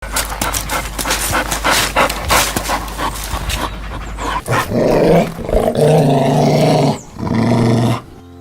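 A dog panting rapidly for about four seconds, then two long, low, drawn-out vocal sounds.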